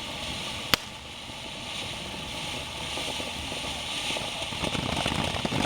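Small ground firework burning with a steady hiss, one sharp pop about three quarters of a second in, and a crackle that builds toward the end.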